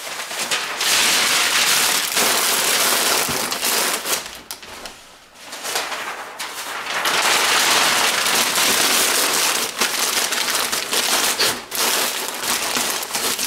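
Sheets of newsprint packing paper being crumpled and stuffed by hand into a cardboard box around a bubble-wrapped item: a loud, continuous crackling rustle in two long spells, with a short pause about five seconds in.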